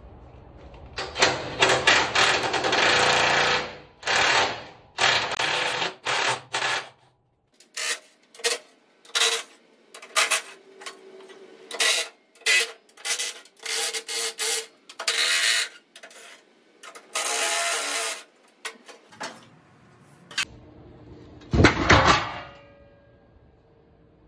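Cordless drill-driver backing bolts out of a truck's front sheet metal: a few longer runs of the motor, then many short bursts of a second or less. A single loud knock comes near the end.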